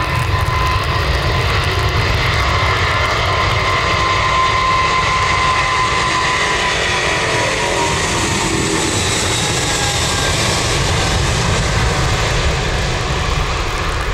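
Twin jet engines of a Boeing 777 airliner at takeoff thrust during its roll on a wet runway. The noise is loud and steady, and its whine drops in pitch about halfway through as the aircraft goes past.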